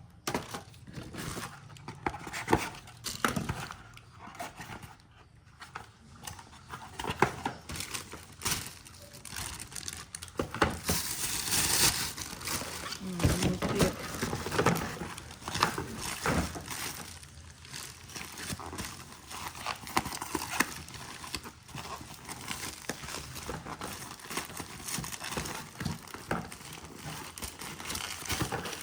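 Packaging crinkling and rustling as parcels are handled and unwrapped, with irregular crackles and small clicks, louder for a moment about twelve seconds in.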